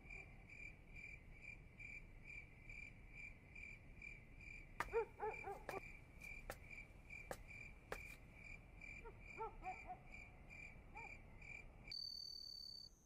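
Crickets chirping at night, a faint, even pulse of about three chirps a second, with a few light clicks and faint lower chirps in the middle. About a second before the end it gives way to a steady high insect trill.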